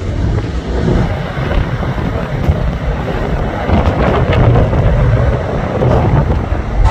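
Strong gusty wind buffeting the microphone, over the low rumble of an airliner's engines.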